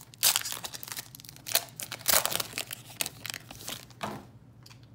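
A Donruss football trading-card pack's foil wrapper being torn open and crinkled by hand: a run of sharp rips and crackles, loudest in the first two seconds, stopping about four seconds in.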